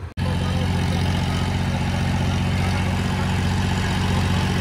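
Diesel tractor engines, an Eicher 557 nearest and a Sonalika 750, running steadily under load as the two tractors pull against each other in a chained tug of war. The sound drops out for an instant right at the start.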